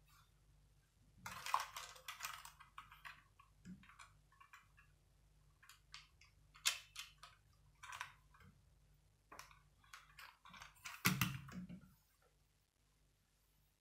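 Plastic Lego bricks clicking and rattling as small pieces are handled and pressed onto a Lego City police helicopter model, in irregular clusters of light clicks. About eleven seconds in comes a heavier knock and rattle as the plastic model is set down on the wooden table.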